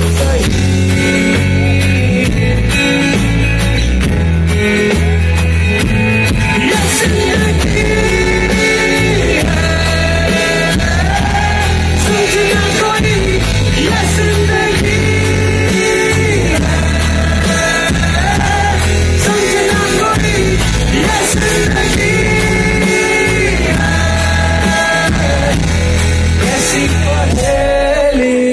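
Hindi rock band playing live through a concert sound system: drums, bass and guitars at steady full volume, with long held melody notes gliding over them.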